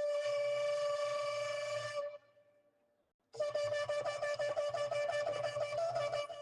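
Shofar blown in two blasts: a long steady note that ends about two seconds in, then, after a short pause, a second blast broken into rapid staccato pulses that stops near the end.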